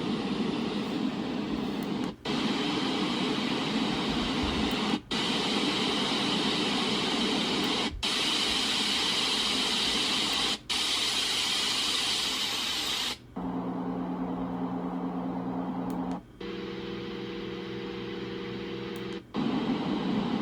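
Dreamegg D1 Nova sound machine stepping through its white noise sounds one after another: about seven steady hisses of a few seconds each, every change marked by a brief gap. The last two sounds are lower, with a steady hum of several tones.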